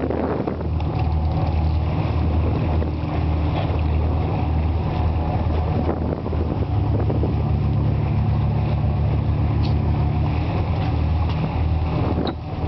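Sportfishing boat's engines running with a steady low hum. The hum grows fuller about six and a half seconds in.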